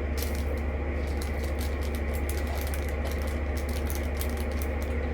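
Light, irregular clicks and rattles of small plastic containers and resin diamond-painting drills being handled, over a steady low hum.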